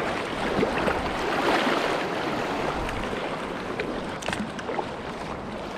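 River water rushing and splashing around a small packraft moving with the current, a steady wash with a few light ticks in the second half.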